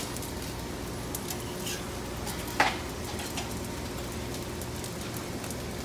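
Food sizzling on a flat-top griddle over a steady low hum, with light clicks from utensils. A single sharp metal clink, the loudest sound, comes about two and a half seconds in.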